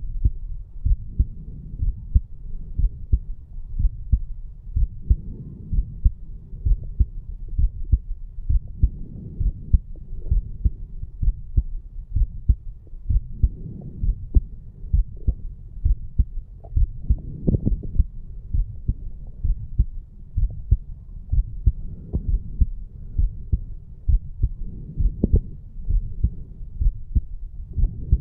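A man's heartbeat recorded at the chest over the mitral valve area after exercise: a steady run of low, thudding heart sounds as the valves close, beat after beat. The uploader takes it as a healthy heart with the valves opening and closing normally.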